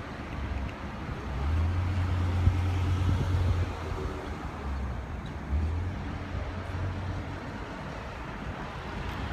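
Road traffic: vehicles driving past, with a low engine hum that swells loudest from about one and a half to three and a half seconds in, and briefly again near six seconds.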